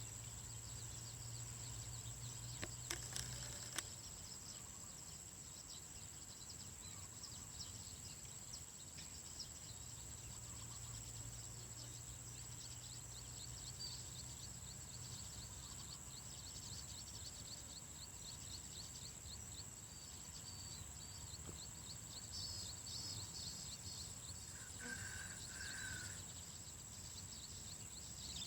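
Faint natural outdoor ambience: a steady high-pitched buzz with runs of rapid, evenly repeated chirps from small animals. Two short lower calls come near the end, with a few soft clicks about three seconds in.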